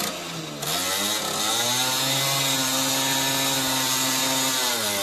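Simson two-stroke moped engine revved hard and held at high revs while the rear tyre spins against a wooden plank in a burnout, with a steady hiss over the engine note. The revs climb about a second in and drop off just before the end.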